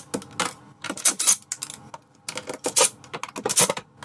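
DeWalt cordless impact driver backing out screws from a wooden cabinet panel, its hammering mechanism rattling in a series of short bursts.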